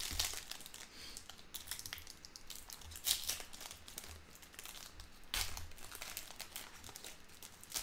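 A trading-card pack wrapper being crinkled and torn open by hand, in several short bursts of crackling tearing with quieter rustling between. The pack is slow to give, not opening easily.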